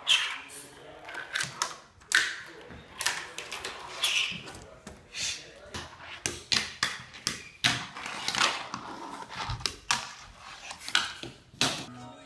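Fingerboard being flicked across wooden ramps and a table: a run of sharp, irregular clacks as the small board pops, lands and knocks on the wood, between short rolling and scraping sounds of its wheels and deck.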